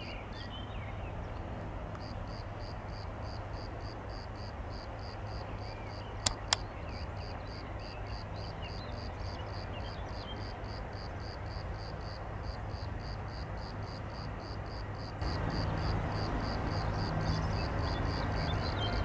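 Bombardier electric locomotive hauling a freight train slowly into a station: a steady low hum that steps up in loudness about fifteen seconds in, with two sharp clicks about six seconds in. Birds chirp, and a fast, even high-pitched pulsing runs throughout.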